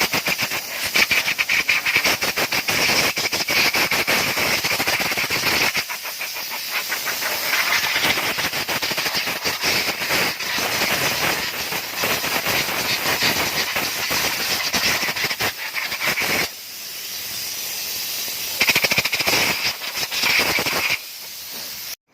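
Hissing, squealing rub from the brake of a 2022 Isuzu D-Max as it rolls slowly, swelling and fading in waves, easing off about three-quarters of the way through and cutting out near the end. The mechanic suspects the brake pads, the rotor disc or the dust backplate rubbing, or a loosened part.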